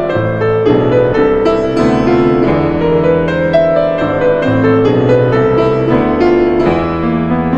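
Instrumental music: keyboard or piano notes over sustained chords, moving steadily at an even level.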